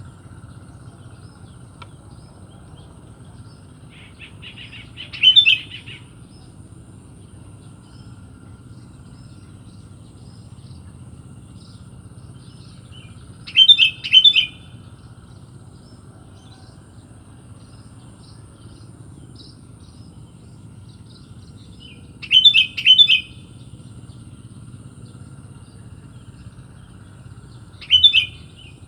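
Sooty-headed bulbul (kutilang) giving short, loud chirping calls four times, roughly every eight seconds, some as quick double notes. A steady low hum runs underneath.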